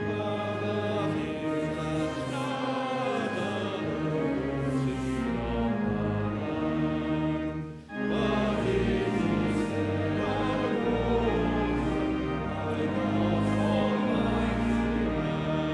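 Church congregation and choir singing a hymn to organ accompaniment, with a brief break about halfway through.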